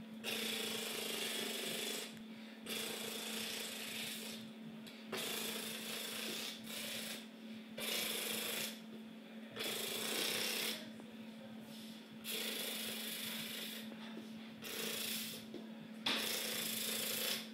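A man imitating a silenced machine gun with his mouth: about nine hissing, rattling bursts of one to two seconds each, separated by short pauses.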